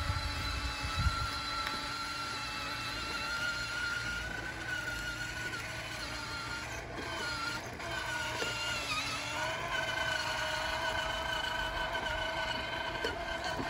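Electric ride-on toy go-kart running along a concrete sidewalk: a steady motor whine that dips briefly in pitch about two-thirds of the way through, over the low rumble of its plastic wheels.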